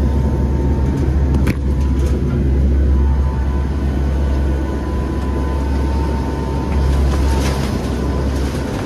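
Steady, loud engine and propeller drone inside the cabin of a hurricane hunter aircraft, with a thin steady whine, and sharp knocks and rattles as the aircraft is thrown about by turbulence, one about a second and a half in and several more near the end.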